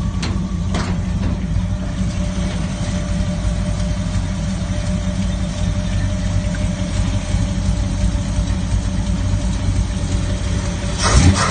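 Rat rod's V8 engine idling with a steady low rumble, with two brief clicks in the first second as the hood latch is worked and the hood lifted. Near the end the sound gets louder and rougher in short bursts.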